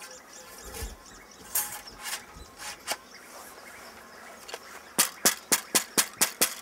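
Ramrod knocking down the barrel of a homemade hunting gun as it is loaded: a few scattered knocks, then a quick run of about eight sharp clicks, five or six a second, near the end.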